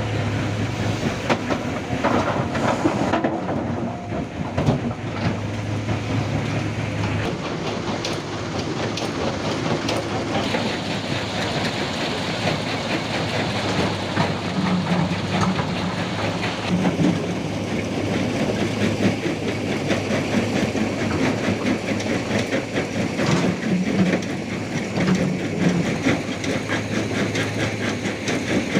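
Caterpillar hydraulic excavator's diesel engine running with a steady hum, while river stones clatter and knock into a steel dump-truck bed as the bucket is loaded and emptied.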